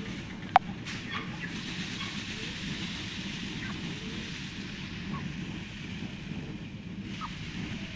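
Steady outdoor background rumble and hiss with a few faint short chirps, and a single sharp click about half a second in.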